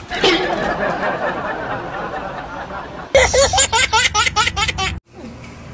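A baby laughing in quick, rhythmic bursts, about five a second, starting about three seconds in and cutting off suddenly. Before it comes a steady noisy rushing sound.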